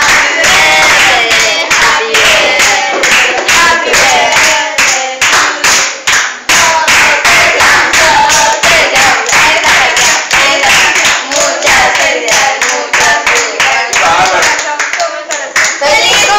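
A group of teenagers clapping in a fast, steady rhythm while singing together.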